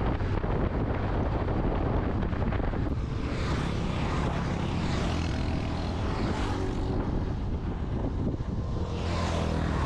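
Motorcycle engine running steadily at road speed, with wind rushing over the microphone; the rushing rises and falls several times.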